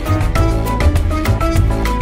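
Background music with a steady beat and a melodic line over a strong bass.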